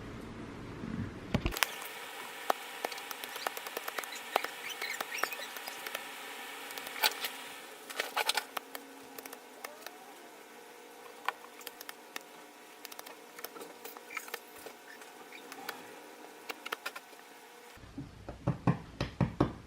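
Close handling noise: hands working a paracord wrist strap, with many irregular light clicks and scratchy rustles over a faint steady whine.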